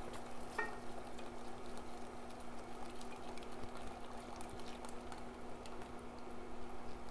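Hot milk-and-cheese mixture pouring into a saucepan of butter-and-flour roux while a wooden spoon stirs it in, a steady wet sloshing with many small clicks.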